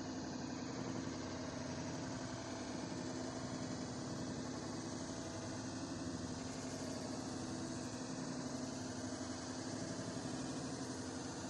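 A motor running steadily, an even hum with one strong low tone that does not change.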